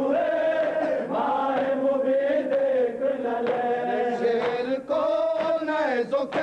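Men's voices chanting an Urdu noha, a Shia lament for Karbala, drawing out long held notes.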